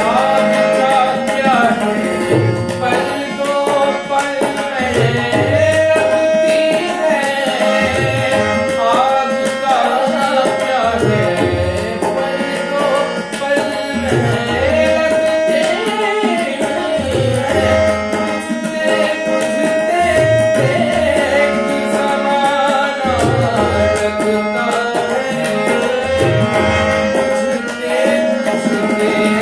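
A ghazal sung by a man's voice with harmonium and tabla accompaniment. The harmonium holds sustained reed chords under the melody, and deep tabla bass strokes bend in pitch every second or two.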